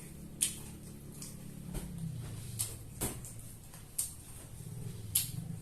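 Crunching of fried chicken cartilage being chewed: sharp, irregular crunches about once a second.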